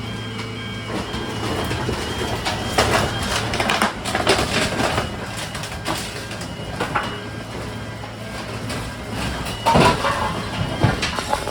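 Garbage truck running steadily, with irregular metal clanks and bangs from the dumpster handling; the loudest bang comes near the end.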